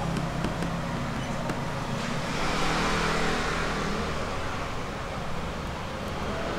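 Street traffic: a steady low engine hum with a vehicle passing, loudest about three seconds in.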